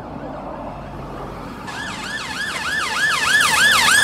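Ambulance siren in its fast yelp, the tone sweeping up and down about three times a second. It comes in about a second and a half in and grows steadily louder as the ambulance approaches.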